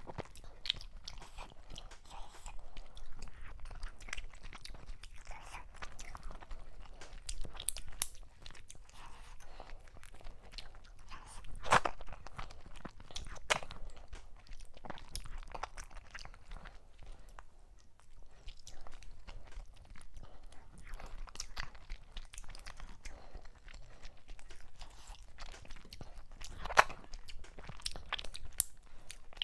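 Close-miked eating sounds of someone eating mackerel in okra soup with fufu by hand: chewing with scattered short mouth clicks, the loudest about twelve seconds in and near the end.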